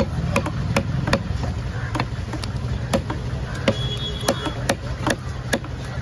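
Large knife chopping a parrotfish into pieces on a wooden chopping block: quick, fairly regular strikes about two to three a second, over a steady low hum.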